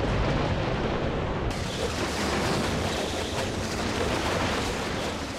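Tornado wind noise: a loud, dense rushing rumble with a strong low end. It turns brighter and hissier about a second and a half in.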